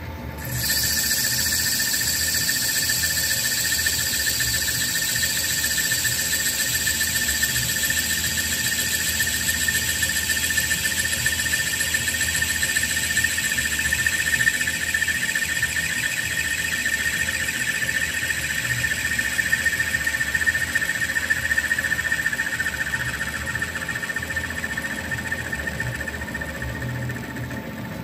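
Metal lathe taking a facing cut across the end of a round bar, the cutting tool squealing with a steady high-pitched tone over the low hum of the running lathe. The squeal starts about half a second in and eases off near the end.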